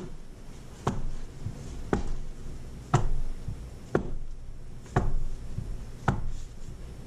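A silicone soap mold filled with hot-process soap knocked down against the counter about once a second, a steady series of sharp thumps that settles the soap into the cavities and works out air bubbles.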